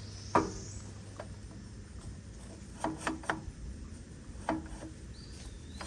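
A handful of short metallic clicks and knocks, some with a brief ring, as a scrench and a chainsaw-tooth brush-cutter blade are handled on a string trimmer's gear head.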